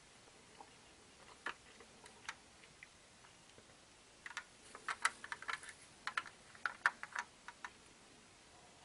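Small irregular clicks and taps as a 1:24 die-cast model car is handled and turned in gloved hands, a few at first, then a quick run of them from about halfway through.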